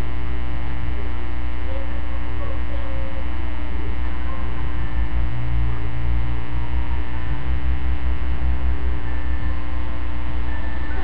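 Loud, steady electrical mains hum, a low buzz with many evenly spaced overtones, holding unchanged throughout.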